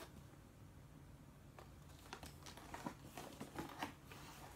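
Faint rustling and light clicks of things being moved about inside a leather satchel as hands rummage through it, starting about a second and a half in.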